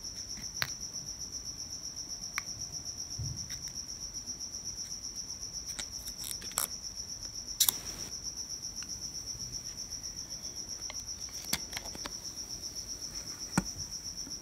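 A cricket chirping steadily, a high-pitched trill pulsing evenly several times a second. A few sharp clicks of glossy trading cards being handled stand out, the loudest about two-thirds of the way in and near the end.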